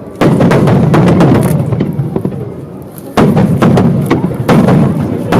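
Aerial fireworks going off in two loud volleys, one just after the start and another about three seconds in, each a sudden bang followed by a dense crackling rumble that slowly dies away.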